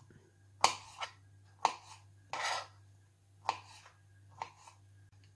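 Kitchen knife cutting grapefruit segments into small cubes on a plastic cutting board: several sharp, irregular taps of the blade on the board, with one longer scrape about two and a half seconds in.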